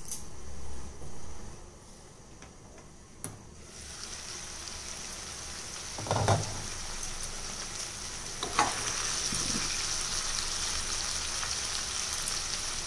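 Vegetables and soya chunks frying in oil and masala in a kadai: a steady sizzle sets in about four seconds in and grows a little louder, with a few knocks against the pan. The sizzle marks the stage where the masala has released its oil.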